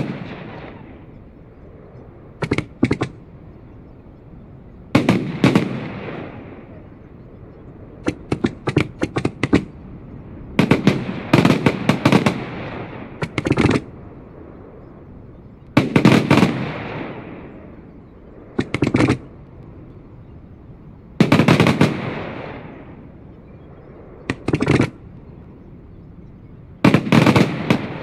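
Fireworks going off in volleys about every two to three seconds, each volley a quick cluster of sharp cracks and bangs that trails off in a rumbling decay.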